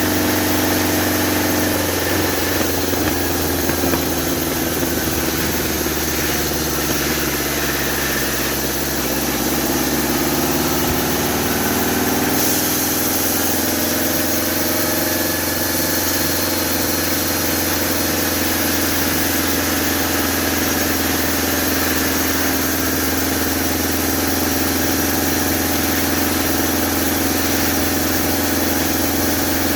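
Homemade sawmill with a 2-inch blade running, its engine slower than normal. The engine pitch drops and wavers about two seconds in, climbs back up between about nine and twelve seconds in, then holds steady.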